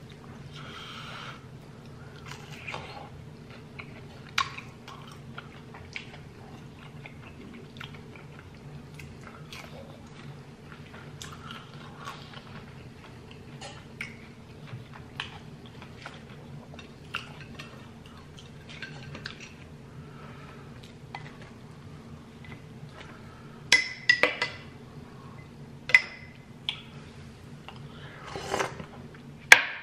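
Close-up chewing and biting of fried cheesy birria tacos, with many small wet clicks. Louder clinks of a metal spoon and the plate come in the last few seconds, over a steady low room hum.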